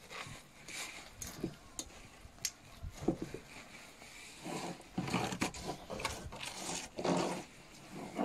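Chopped cabbage leaves and carrot being pressed and packed down by hand in an enamel basin, giving irregular soft crunching and rustling with a few sharp clicks.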